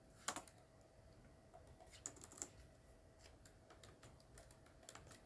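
Faint computer keyboard typing: scattered single keystrokes, one a little louder just after the start and a small cluster about two seconds in.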